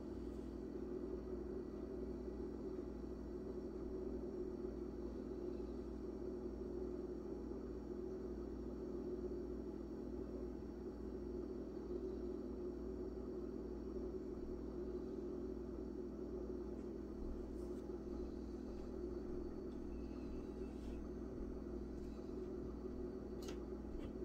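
Steady low hum and rumble of room noise, with a few faint ticks in the second half.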